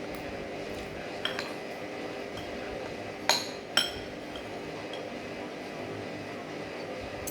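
Cutlery clinking against a plate while eating: a faint ringing clink about a second in, then two sharp clinks about half a second apart a little after three seconds, over a steady low hum.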